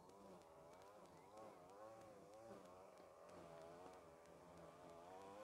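Faint motor engine running, its pitch rising and falling again and again as it revs.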